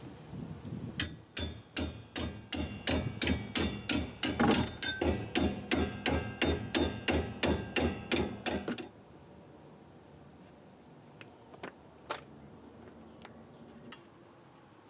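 Wrench turning out a rear brake caliper slide pin bolt on a 2004 Suzuki Forenza: a steady run of metallic clicks, about three a second, for roughly eight seconds. After that come a few scattered faint clicks as the loosened caliper is handled.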